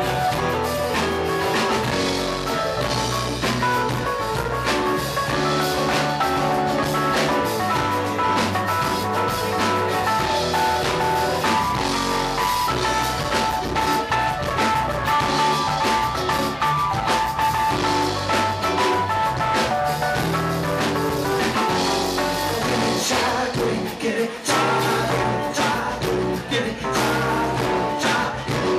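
Live band playing: drum kit, electric bass and guitar, with a held melody line over them. Singing comes in near the end.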